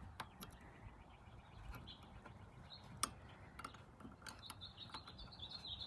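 Faint clicks of a plastic bulb socket being handled and pushed into a Honda Odyssey's rear light housing, with one sharper click about halfway through. Birds chirp faintly near the end.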